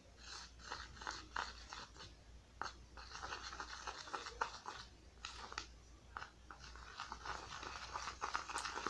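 White glue being stirred in a container with a utensil after laundry-powder activator has been added: an irregular run of short, sticky scrapes and clicks as the mixture begins to thicken toward slime.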